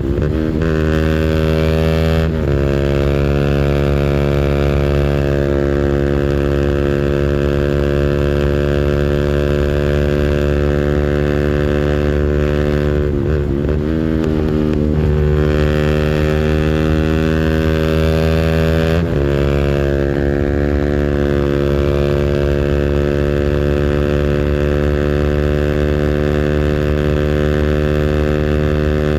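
200cc engine held at high revs on its rev limiter, a steady, loud engine tone. A few times the pitch dips briefly and then climbs straight back to the limiter.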